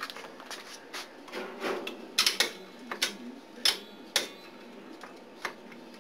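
Rope being pulled through a rope-length counter, making a run of irregular sharp clicks and knocks, about a dozen, the loudest clustered around the middle.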